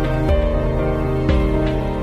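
Soft instrumental background music, with sustained notes and a new chord struck about once a second.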